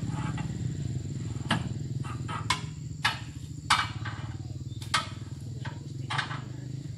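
Oil palm fruit bunches being loaded by hand onto a truck, landing with sharp knocks about six times at uneven intervals. Under them runs a steady low engine hum and a thin, steady high tone.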